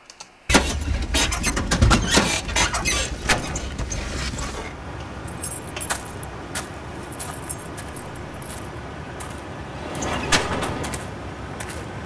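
Film sound mix of people getting out of a car: a low in-car rumble that stops about four to five seconds in, then keys jangling, car-door clicks and thuds and footsteps over a quiet ambience of light city traffic and pedestrians.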